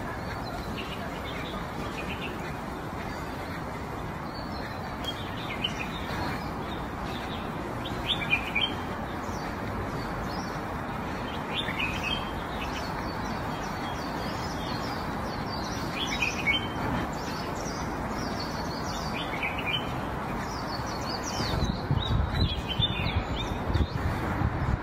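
Small birds chirping in short, scattered calls over a steady background hiss, with a few louder low-pitched noises near the end.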